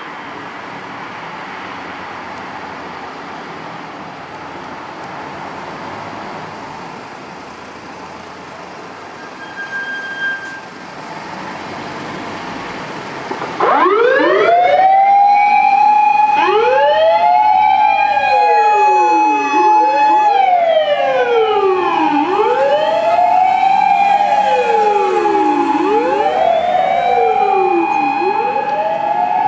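Road and engine noise with a brief tone near the middle, then about halfway through a fire rescue truck's sirens wind up and begin wailing, several overlapping rises and falls repeating every few seconds, much louder than the traffic before.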